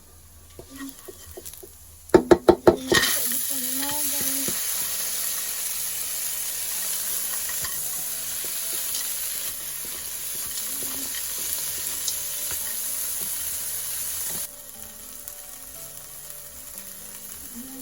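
Food frying in hot oil in a pan: a quick run of about six loud knocks of a utensil against the pan, then a loud steady sizzle with stirring that drops to a much quieter sizzle about three-quarters of the way through.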